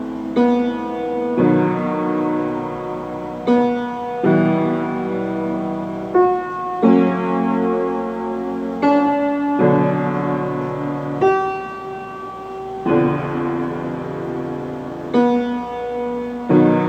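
Solo piano playing a slow instrumental piece: held chords, with a new chord struck roughly every one to two seconds.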